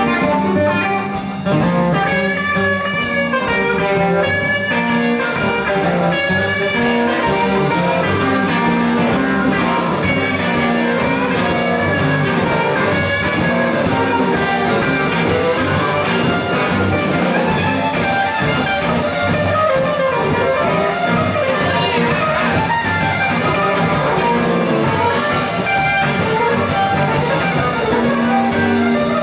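Live blues band playing: electric guitar over a steady drum-kit beat.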